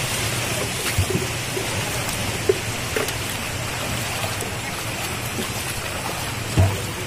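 Steady rush of shallow stream water, with splashing and a few short knocks as people wash motorcycles standing in it.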